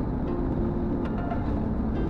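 Background music soundtrack with held notes over a steady low rumble.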